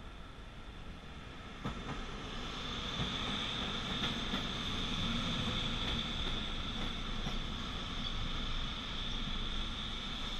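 Electric multiple-unit passenger train pulling in along the platform. The rumble of its cars swells from about two seconds in, with a few wheel clacks over rail joints and a steady high whine.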